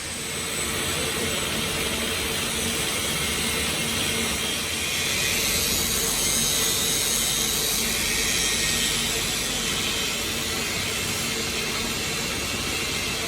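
Workshop machinery running steadily: a continuous mechanical grinding noise with a strong high hiss and a faint hum underneath.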